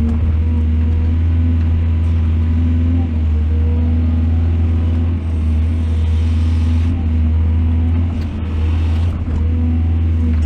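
Heavy diesel engine of earth-moving machinery running steadily under load, its pitch wavering slightly, with a stretch of hiss about six seconds in and a few sharp clicks shortly after.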